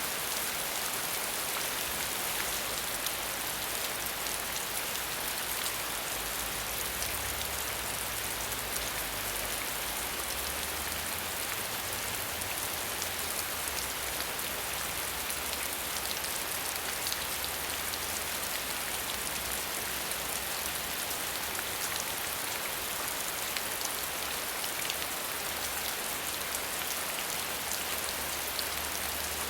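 Steady rain falling on a surface, a constant hiss of many fine drop impacts.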